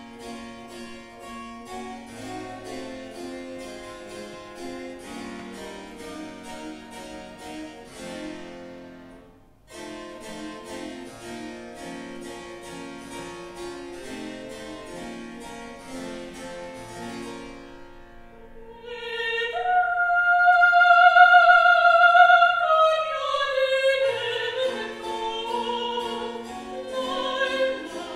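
Harpsichord playing a slow passage of evenly repeated notes, with a short break about nine seconds in. About two-thirds of the way through, a countertenor enters on a long held note that then falls, and sings on over the harpsichord.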